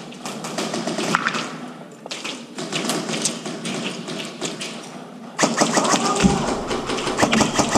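Airsoft guns firing in a game: scattered sharp clicks and knocks, then a dense, rapid run of clicks in the last couple of seconds.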